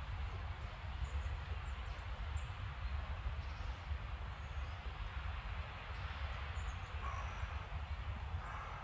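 Steady low rumble and hiss of outdoor ambience, with a few faint, very short, high chirps of small birds scattered through it.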